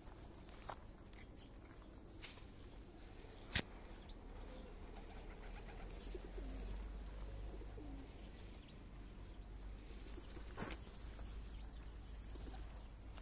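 Feral pigeons cooing faintly while feeding, with a sharp click about three and a half seconds in, a few smaller clicks, and a low rumble in the background.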